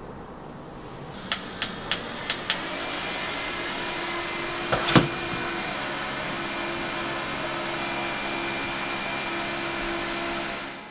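Small handheld electric fan running with a steady whir and a faint whine. Five quick clicks come about a second in, a louder click near the middle, and the whir cuts off just before the end.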